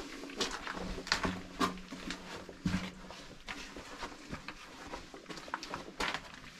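Footsteps crunching and scuffing over rubble and grit on a tunnel floor, an irregular series of crackly steps.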